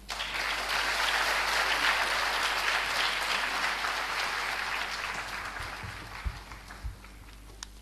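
Audience applause, starting suddenly and strongest for the first few seconds, then dying away over the second half.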